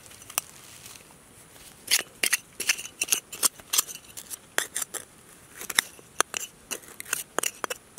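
A small hand shovel scraping and digging into dry, crumbly soil. It makes a run of irregular crunching scrapes that starts about two seconds in.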